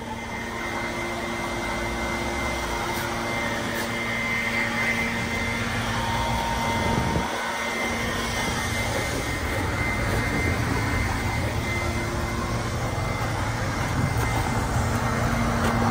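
Large truck's engine idling steadily, a constant drone with a held whine, getting gradually louder.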